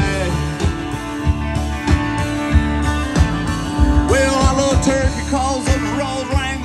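Live country rock band playing with a steady drum beat: electric and acoustic guitars, bass guitar and drum kit.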